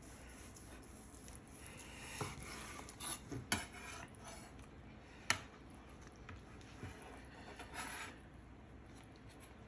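Long slicing knife cutting through a smoked brisket on a wooden cutting board: faint scraping strokes through the crust and meat, with a few light knocks of the blade against the board, the sharpest a little past halfway.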